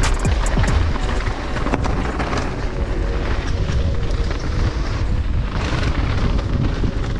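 Mountain bike riding down a dirt bike-park trail: wind rushing over the microphone with tyre and trail noise, and a few sharp clicks and rattles in the first second.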